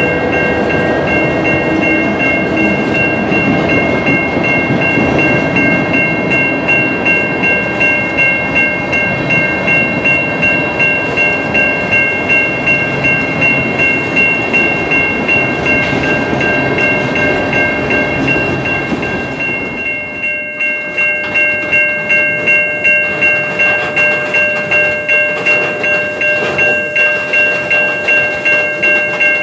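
Freight cars of a Canadian National train rolling past close by, the wheels clacking over rail joints about twice a second. A steady high-pitched squeal from the wheels runs under it, and the low rumble eases about two-thirds of the way through as lighter hoppers and boxcars replace the tank cars.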